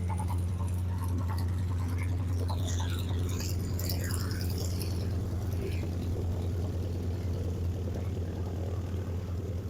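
Propeller airplane's piston engine droning steadily at a low, even pitch, with faint scattered higher sounds a few seconds in.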